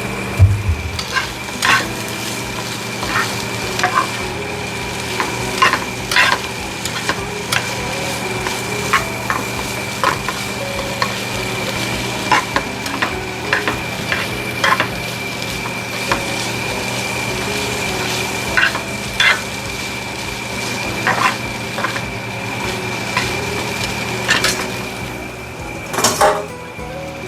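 Chicken sizzling in hot olive oil in a frying pan as it is stir-fried, with a utensil clacking and scraping against the pan every second or two and a quick flurry of knocks near the end.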